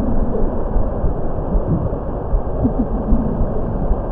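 Steady low rumbling ambient background soundscape with faint bubbling, gurgling glides scattered through it. No breath is heard: this is the silent breath-hold phase.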